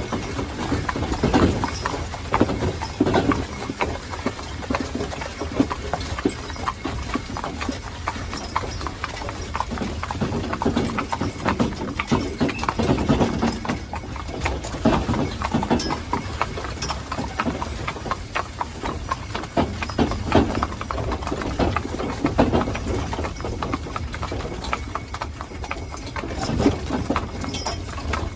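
Hooves of a pair of Haflinger horses clip-clopping steadily as they pull a wagon.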